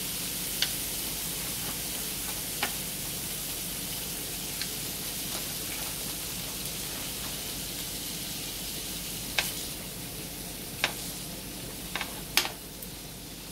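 Marinated chicken breasts and lemon slices sizzling steadily on a George Foreman electric contact grill, with a few sharp clicks of metal tongs, several of them close together near the end.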